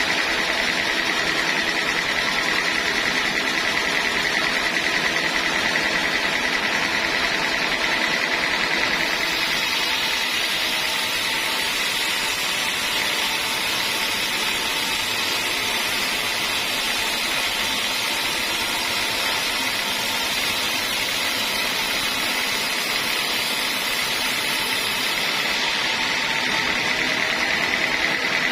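Sawmill saw running steadily with a high whine. From about a third of the way in until near the end a thin, very high hiss joins it and the whine dulls, then the earlier sound returns.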